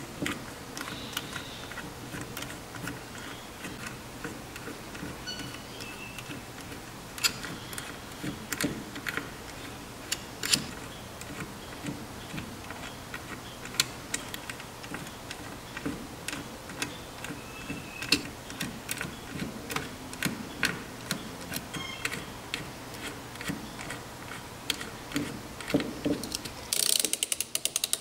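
Metal hand tools being worked in a garage: irregular sharp metallic clicks and clanks over a low steady hum, with a short burst of hissing near the end.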